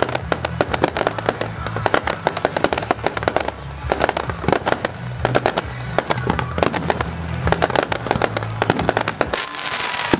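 Fireworks display: a rapid, dense run of bangs and crackles from aerial shells bursting one after another, with a whistle near the end.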